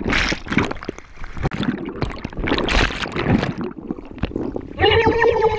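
Splashing and gurgling bubbles as a GoPro plunges into the sea with a jumper, then muffled rushing water noise underwater. Near the end a steady pitched sound starts.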